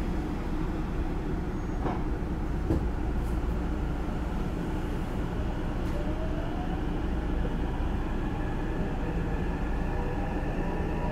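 Running sound inside a Hankyu 9000 series train car: a steady rumble of wheels on the rails with two sharp clicks a few seconds in. From about halfway, the whine of the Toshiba IGBT VVVF inverter and traction motors rises in pitch as the train picks up speed.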